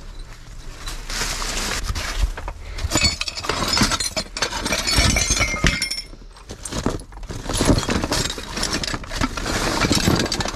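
Broken frog figurines clinking and grating against each other in a box as they are rummaged through, with a quieter stretch a little past the middle.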